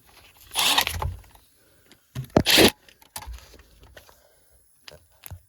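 Power drill run in short bursts, twice: once about half a second in and once, louder, about two seconds in. Light clicks and scrapes of handling follow.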